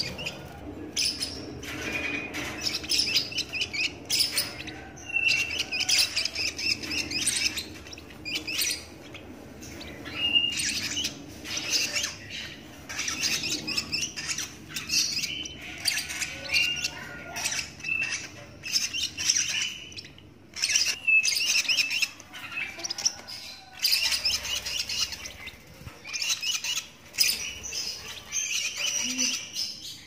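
A 17-day-old lovebird chick giving its begging calls: short high chirps repeated in quick bursts, with brief pauses in between.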